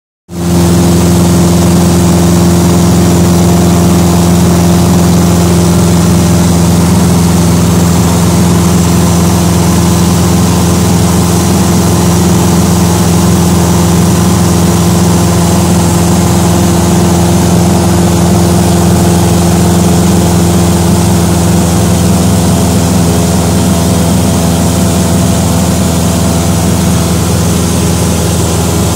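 Cessna 172's piston engine and propeller droning steadily in cruise, heard inside the cabin, over a steady hiss of rushing air.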